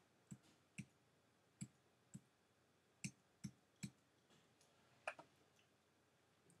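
About eight short, sharp clicks of a computer keyboard at an uneven pace: keystrokes repeatedly undoing the last edits.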